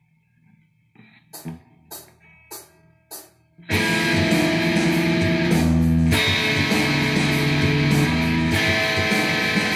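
Four evenly spaced clicks like a count-in. About four seconds in, an Ibanez electric guitar comes in loud, played against drums, and keeps going.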